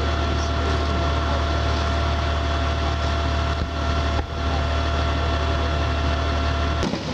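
Steady engine drone at idle, with a strong low hum and a few constant tones above it, dipping briefly about four seconds in and again near the end.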